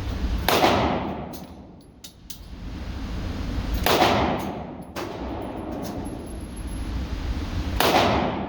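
Three handgun shots, slow and spaced about four seconds apart, each with a long ringing echo that fades. Several fainter sharp cracks fall between them.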